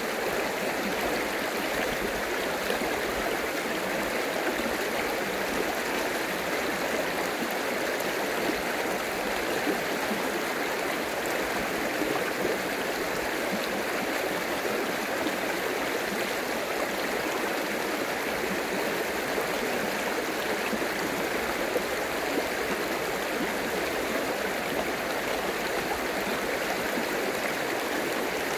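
Shallow rocky stream running over stones: a steady, even rush of water with no breaks.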